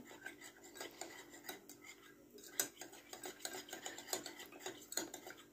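Metal teaspoon stirring in a ceramic cup, clinking and scraping lightly against its sides over and over, as cornstarch is dissolved in tap water.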